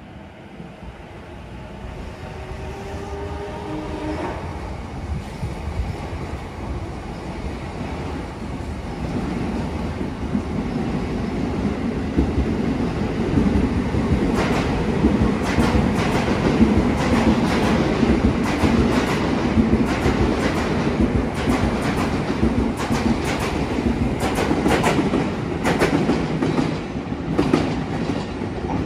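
Electric commuter train running in past the platform: a motor whine falling in pitch in the first few seconds, then a rumble growing louder, and from about halfway the rapid clacking of its wheels over rail joints.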